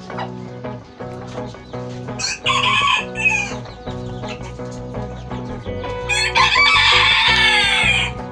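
Golden Sebright bantam rooster crowing: a shorter call about two seconds in, then a long, loud crow of about two seconds near the end. Background music with a steady beat runs underneath.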